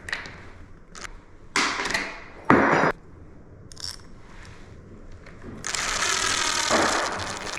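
Two short scraping, handling noises, then a cordless drill-driver running for about two seconds near the end while a closet doorknob is screwed in place.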